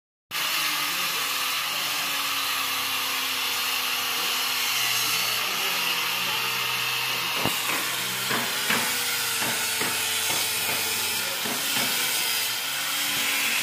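Handheld electric disc sander running steadily on bare wood, a constant motor tone under a sanding hiss, with several sharp clicks and knocks in the second half.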